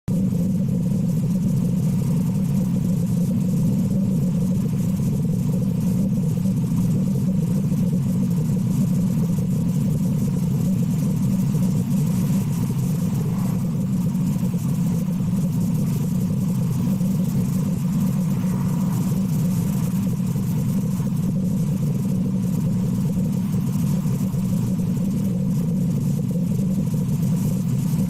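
A steady, unbroken low drone like a running engine, with no separate breaths or blows standing out.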